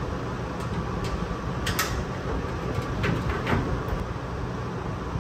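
Faint clicks and scrapes of a hand screwdriver turning small screws into a pickup truck's grille, a few light ticks about two and three seconds in, over a steady low background hum.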